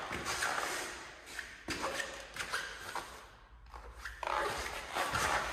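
Irregular footsteps and shuffling on a hard floor, with light taps and thuds, easing off briefly about three and a half seconds in.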